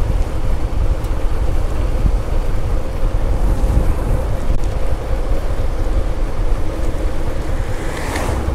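Wind buffeting the microphone of a moving motorcycle, with the engine's steady hum underneath. Near the end an oncoming car sweeps past with a brief whoosh.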